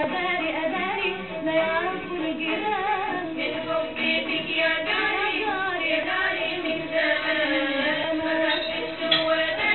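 Arabic film-song music: a woman sings a melismatic, wavering vocal line over instrumental accompaniment.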